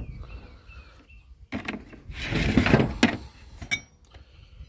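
Heavy brass valves and other scrap metal being handled in a truck bed: a scraping slide starting about two seconds in, with a couple of sharp metallic clinks near the end.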